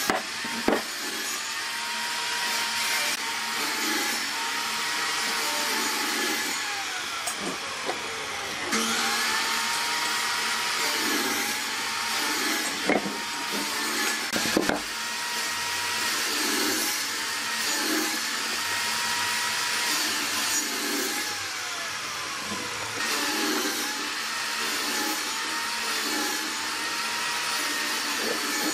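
Electric power tool working wood: a steady motor whine whose pitch dips and recovers every couple of seconds as the tool is pushed through the wood, with a few sharp knocks in between.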